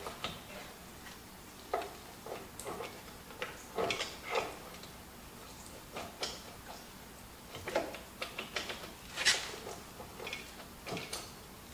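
Irregular light metallic clicks and knocks from hand work at the lift-cylinder mount of a Bobcat T300 skid steer's boom, as the cylinder pin is lined up; the sharpest knock comes about nine seconds in.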